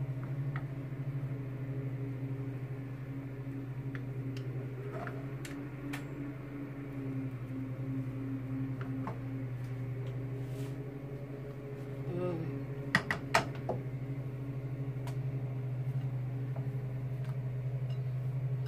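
Steady low mechanical hum of a kitchen machine running, with a few light clicks and clinks of utensils, the clearest a little past the middle.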